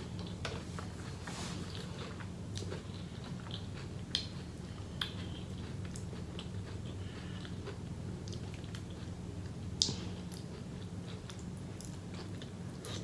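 A person eating sauce-dipped seafood boil: soft chewing and wet mouth smacks, with a few sharper clicks about four, five and ten seconds in, over a faint steady low hum.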